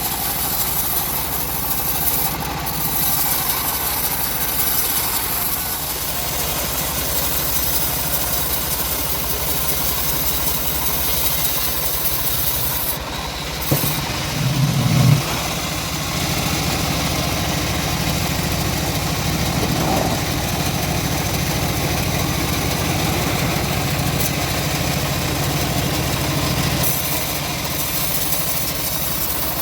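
Engine-driven homemade bandsaw mill running steadily while sawing a leucaena log. About halfway through there is a short louder surge, and a stronger low hum then holds for most of the rest.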